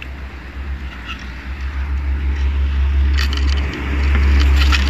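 Packaging rustling and knocking as a MIG welding torch and its cable are lifted out of plastic wrapping and a cardboard insert is moved, with a few sharp clicks about three seconds in and again near the end. A steady low rumble runs underneath and grows louder over the last second.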